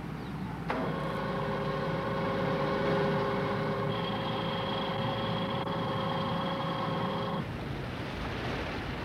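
Electric motor of a sluice-gate actuator starts suddenly under a second in and runs with a steady whine, a higher tone joining about halfway. It stops abruptly near the end, giving way to rushing water.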